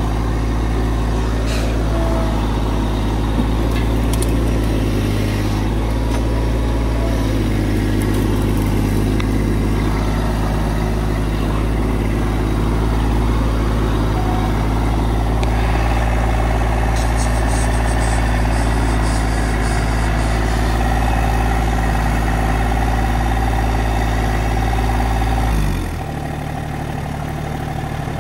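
Massey Ferguson GC1710 compact tractor's diesel engine running steadily at working revs, with a few light clicks. Near the end the engine speed drops and it settles to a lower, quieter run.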